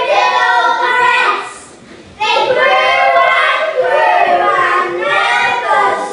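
A group of children singing together: one sung phrase, a short break about a second and a half in, then a longer phrase.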